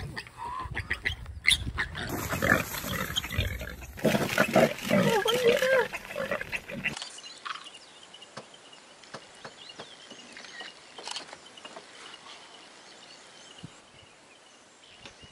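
Warthog piglet squealing in distress while a leopard carries it off, with loud jostling noise and knocks. About seven seconds in this gives way to much quieter bush sound with scattered soft ticks and a faint steady high tone.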